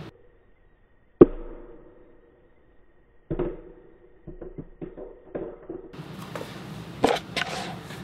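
A phone in a rugged case dropped onto a concrete floor: a sharp hit about a second in with a short ring after it, a second hit about two seconds later, then several lighter clattering bounces and a couple more knocks near the end.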